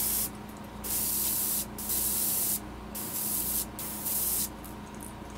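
Airbrush spraying paint onto a lure in about five short bursts of air hiss with brief pauses between, the last stopping near the end.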